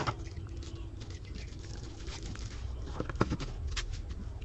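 Plastic packaging rustling and crinkling as wrapped items are handled in a cardboard box, with a few sharp crinkles and taps about three seconds in.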